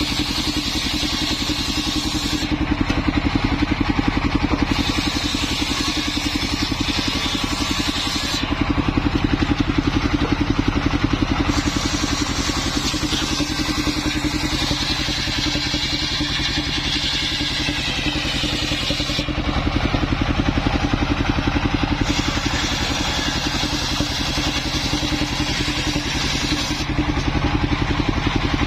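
Small engine powering a homemade circular-saw rig, running steadily throughout. In the middle stretch a faint whine wavers up and down in pitch, and the sound grows a little louder for a few seconds at a time.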